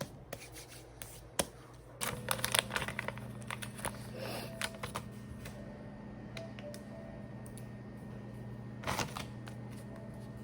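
Small clicks and handling noises. About two seconds in, a steady low hum starts and runs on underneath.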